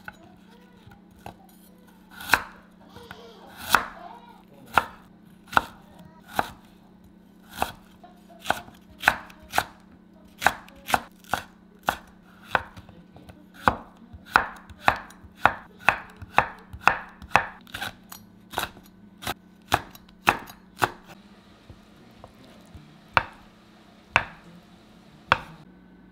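Chef's knife chopping Korean radish and zucchini on a wooden cutting board: a run of sharp, irregular knocks, about one or two a second, coming faster in the middle.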